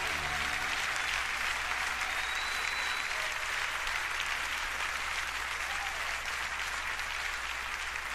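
Concert audience applauding steadily, with a low hum underneath.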